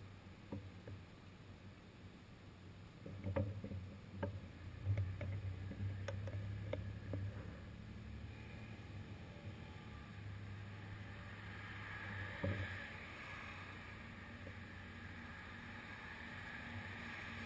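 Car engines idling close behind a stopped bicycle, a low steady hum, with a few light clicks and knocks between about three and seven seconds in. A broad hiss of traffic comes up from about twelve seconds in.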